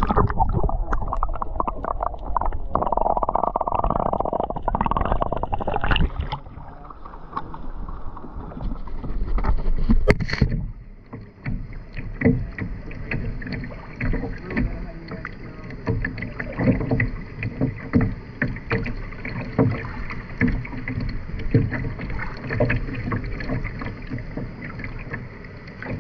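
Kayak paddling: paddle blades dipping and splashing, with water sloshing and dripping around the hull. A louder rush of water noise fills the first six seconds or so, and a sharp splash comes about ten seconds in. After that it breaks into scattered small splashes and knocks.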